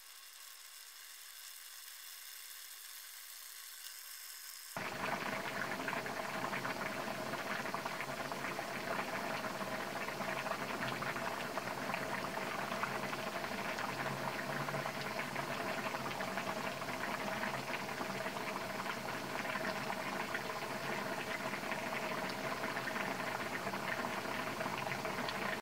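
Shrimp, squid and vegetable broth boiling in a wok, a dense, steady bubbling that starts abruptly about five seconds in. Before it there is only a faint, steady hum.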